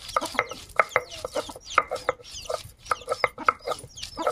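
Hens clucking over and over, several short clucks a second, with thin high chirps above them.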